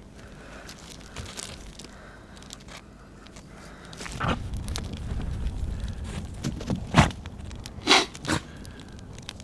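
Crunching and scraping handling sounds with several sharp knocks, over a low rumbling noise that comes in about four seconds in.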